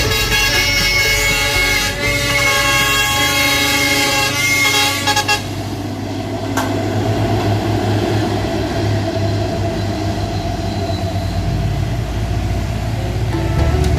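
Heavy truck's air horn blaring loudly in a long, steady multi-note blast that cuts off suddenly about five seconds in. A low, steady diesel engine rumble and road noise carry on after it.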